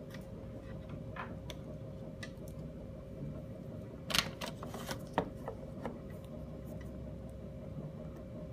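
Small clicks and rustles of phone parts being handled: a battery and a plastic charging clip picked up and fitted, with a louder cluster of clicks about four to five seconds in, over a steady low hum.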